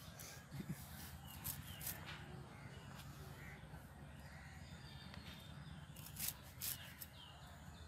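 Fresh coriander leaves and stems being sliced against a boti's fixed curved blade, giving a few short crisp cuts, with birds calling faintly in the background.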